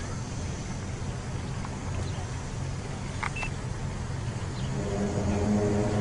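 Low, steady rumbling hum made of several evenly spaced deep tones, growing louder near the end. It is presented as the unexplained rumbling heard in the area. A short high chirp comes about three seconds in.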